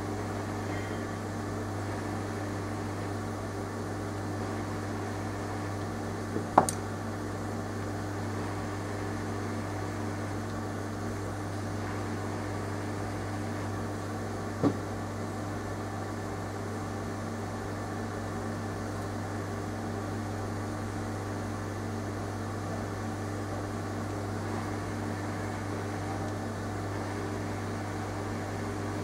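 A steady machine hum, such as a fan or motor, with two sharp clicks, the first and louder about six and a half seconds in and the second about eight seconds later.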